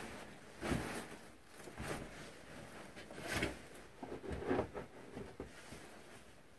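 Sleeping bag and bedding being handled and shifted, rustling in a few short irregular bursts.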